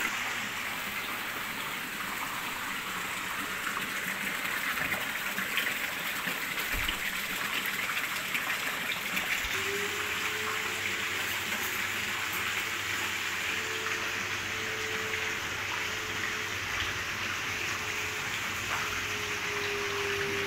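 Swimming pool water features running: jets of water splashing steadily into the pool with a constant rushing, churning sound. About halfway through a steady hum joins in.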